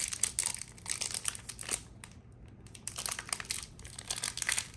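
Crinkling of a Pokémon booster pack's foil wrapper being handled, in two bouts of crackling: the first second and a half or so, then again from about three seconds in.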